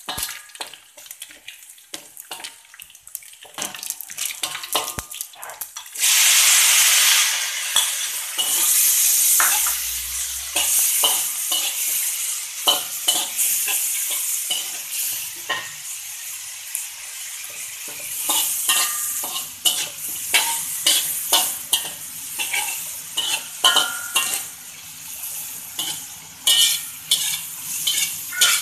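Metal spatula scraping and clicking against a wok of shallots frying in oil, then about six seconds in a sudden loud sizzle as chopped green chillies go into the hot oil. The sizzle slowly dies down under steady spatula scrapes and clicks as they are stir-fried.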